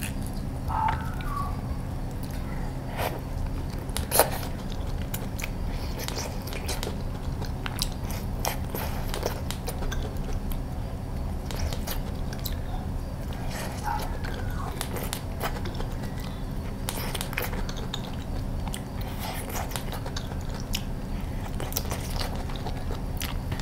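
Close-miked mouth sounds of biting into and chewing peeled rambutan, with wet clicks and smacks scattered throughout and one sharper click about four seconds in. A steady low hum sits underneath.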